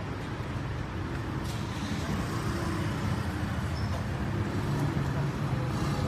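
Steady low rumble of road traffic, with vehicle engines running close by.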